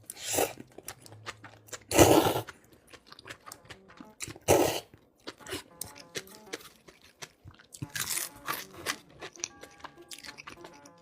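A person eating crunchy food close to the microphone: loud crunching bites near the start, at about two seconds, at about four and a half seconds and again around eight seconds, with quieter chewing clicks between them. Faint background music plays underneath.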